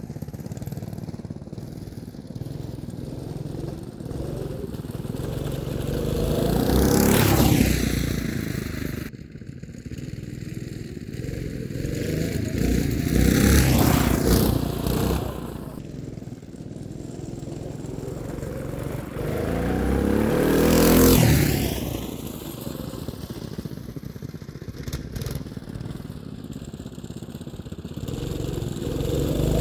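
Homemade twin-engine go-kart with two small engines driving back and forth past close by. It passes about every seven seconds, each pass growing louder and then dropping in pitch as it goes by. The last pass comes at the very end.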